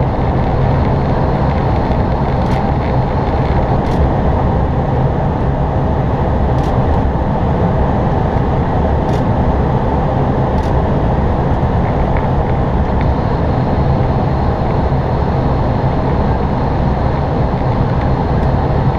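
Steady cockpit noise of an Airbus A320 in descent: an even rumble and rush of air around the flight deck, unchanging throughout.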